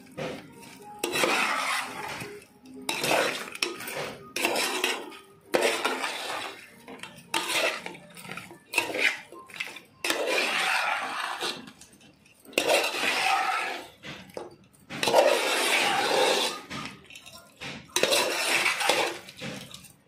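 Steel spoon stirring and scraping against a pot as it mixes raw fish pieces with wet onion masala and spice powders, in repeated uneven strokes with short pauses between.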